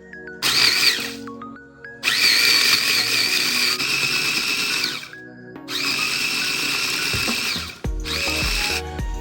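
Electric blender grinding roasted salt, Sichuan peppercorns and star anise into a powder, run in four bursts: a short one, a long one of about three seconds, another of about two seconds, and a short one near the end, each with a steady high motor whine.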